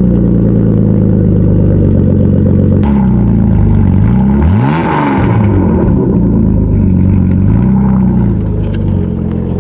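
Car engine running just after starting, revved up sharply about halfway through and dropping back, then blipped once more more gently before settling.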